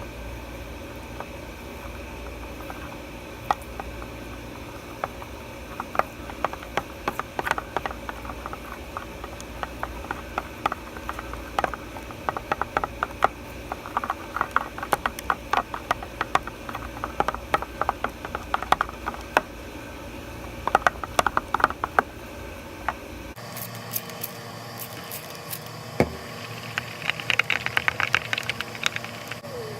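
Glue-and-glitter slime being stirred and worked by hand: irregular sticky clicks and crackles over a steady background hiss, in thick runs.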